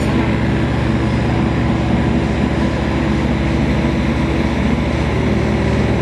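Engine of an XCMG XE15R mini excavator running steadily with a fast, even pulse, as the machine's upper structure swings around on its tracks.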